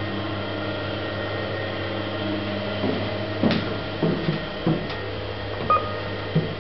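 Service lift with a KONE EcoDisc machine, a steady electrical hum in the lift, with a run of irregular clunks and knocks from about three seconds in, typical of the lift's doors and car moving at a landing.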